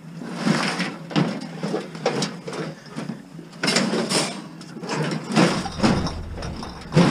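Metal and plastic scrap clattering, knocking and scraping as a partly stripped microwave oven is pushed into the back of a car crammed with scrap, in a series of irregular bangs, the loudest about four seconds in and right at the end.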